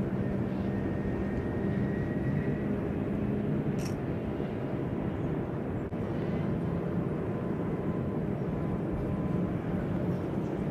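A steady low engine drone with a faint gliding whine, from an engine somewhere off in the distance. Two light, sharp clicks cut through it, about four seconds in and at the very end, as putters strike golf balls.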